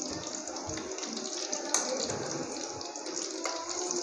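Bitter gourds (karela) deep-frying in hot oil in a metal wok: a steady sizzle full of small crackles. A metal spoon clinks sharply against the pan once, a little under two seconds in.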